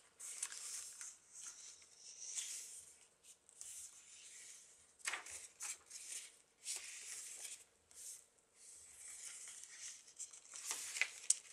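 Pages of a thick handmade paper journal being turned: a series of soft papery swishes and rustles, one every second or two.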